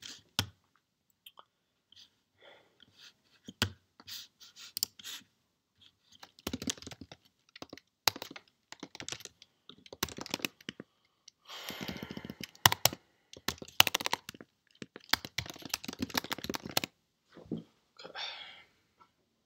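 Typing on a computer keyboard: runs of quick keystrokes in several bursts with short pauses between them.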